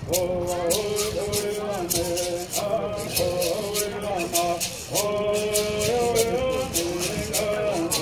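Traditional Southern California bird song: men singing over a steady beat of shaken gourd rattles, accompanying the bird dance.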